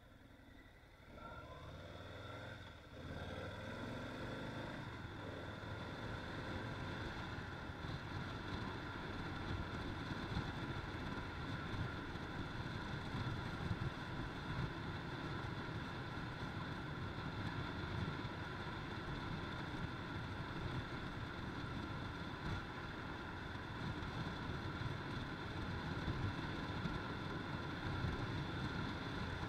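Harley-Davidson Low Rider S V-twin pulling away and gathering speed during the first few seconds, then cruising steadily at about 40 mph, its exhaust rumble mixed with wind rushing past.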